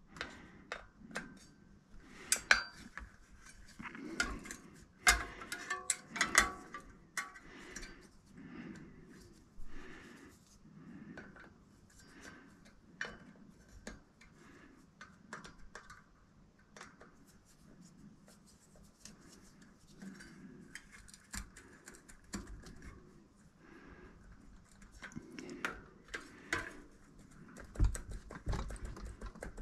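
Irregular light metallic clicks and clinks as an Allen key works the retaining screw of an E13 cassette and the cassette parts are handled at a bicycle rear hub. The clicks are busiest in the first few seconds and pick up again near the end.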